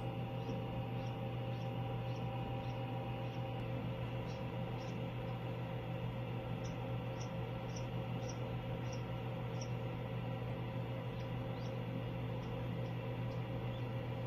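Indian Runner duckling hatching and peeping: short, high peeps, some falling in pitch, about two a second in runs with brief pauses. They sound over the steady electrical hum of the incubator, which is the loudest sound throughout.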